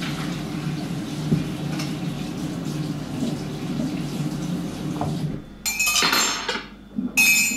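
Kitchen tap running steadily into the sink while dishes are rinsed, shut off a little over five seconds in; then two short clatters of dishes and cutlery.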